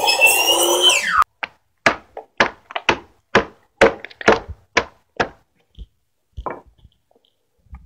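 A circular saw finishes its cut and winds down about a second in. Then come a string of sharp, separate wooden knocks, two or three a second, as the thin slices of waste left between saw kerfs are struck off the end of a timber-frame beam with a hand tool.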